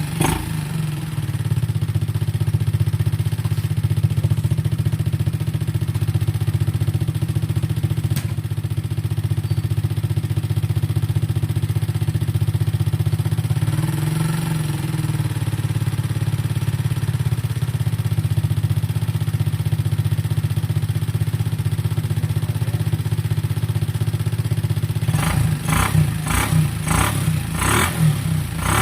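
Rusi Rapid scooter's small single-cylinder engine idling steadily after a carburetor cleaning and tune-up, with a slight change in its note about halfway through. Several sharp clatters come near the end.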